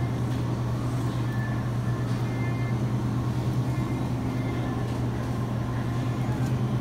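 Steady low electrical hum from supermarket refrigerated display cases, with fainter steady higher tones above it.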